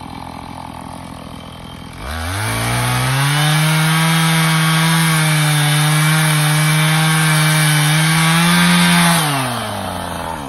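Two-stroke chainsaw revved from a low idle to full throttle about two seconds in, held there for about seven seconds while cutting through a log, then dropping back toward idle near the end.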